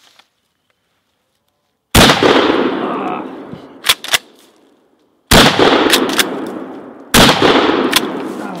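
Three 12-gauge pump-action shotgun shots firing 3.5-inch magnum buckshot shells, each with a long echoing tail. The first comes about two seconds in and the last two are under two seconds apart. Between shots the pump is racked with a quick double clack.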